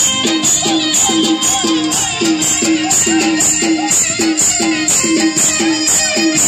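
Loud, fast Navratri garba dance music with a steady beat: a drum with a dropping pitch and a bright shaker-like rattle strike together about three times a second.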